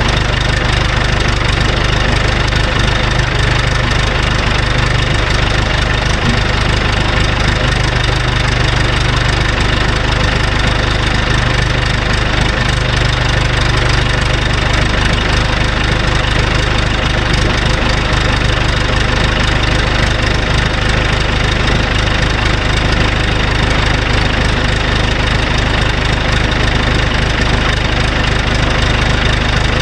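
John Deere 450C crawler dozer's diesel engine idling steadily.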